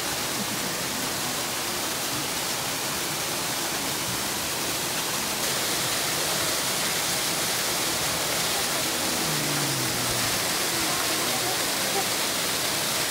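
Steady rush of water churning into a polar bear pool, like a small waterfall, even and unbroken throughout.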